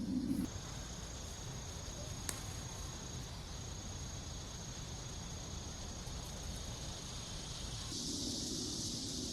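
An insect trilling on one steady high pitch over low outdoor background noise, with a single sharp click about two seconds in.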